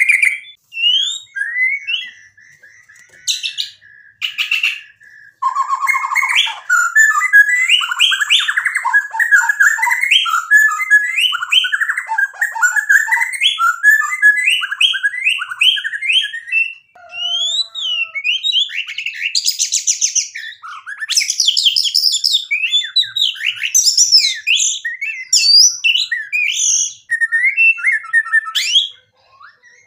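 Male white-rumped shama (murai batu) in full song: fast, varied chirps, whistles and trills. A few scattered notes come first, then a long continuous run from about five seconds in.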